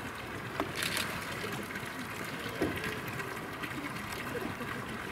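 Water pouring from a pipe spout into a shallow concrete pool, a steady splashing, with one short louder splash about a second in.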